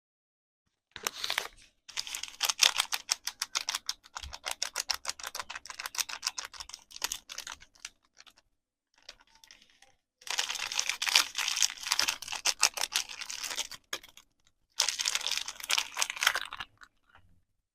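Soap packaging being handled and unwrapped, with crisp crinkling and quick dense clicking in three bursts of several seconds each.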